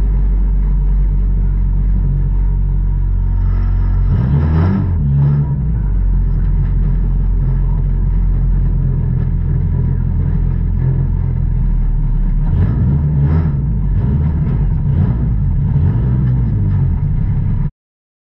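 Dirt-track race car engine heard from inside the cockpit, idling loudly with short throttle blips about four seconds in and again a few times between twelve and fifteen seconds. The sound cuts off suddenly near the end.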